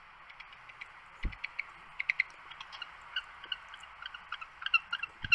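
Penguin colony calling: many short, sharp chirps over a steady hiss, coming thicker toward the end, with two low thumps, about a second in and near the end.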